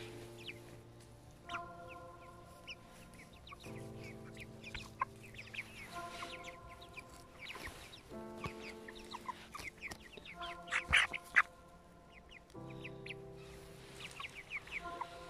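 Broiler chickens giving many short high cheeps over background music of slow held chords that change every four seconds or so. A louder, sharper burst comes about eleven seconds in.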